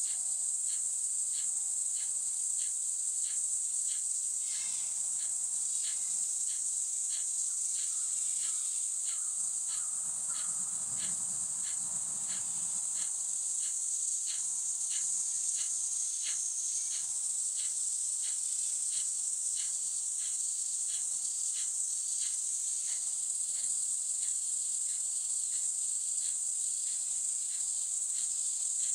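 Steady high-pitched insect drone with a second insect's regular chirp about twice a second. A faint low rumble swells and fades around the middle.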